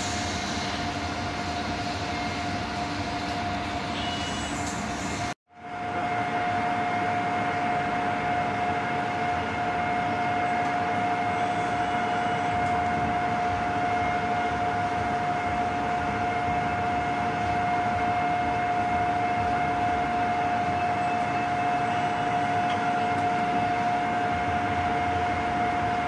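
Hyundai Wia KL 7000 LY CNC lathe running: a steady machine hum with a constant whine over it, broken by a brief dropout about five seconds in.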